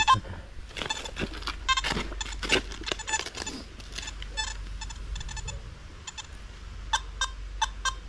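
Metal detector giving repeated short beeping tones over a buried target. A shovel cuts and scrapes into the soil among the beeps, about one to three and a half seconds in, and a few more beeps come near the end.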